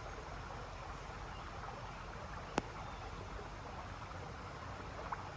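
Steady outdoor background hiss, with one sharp click about two and a half seconds in and a fainter one near the end.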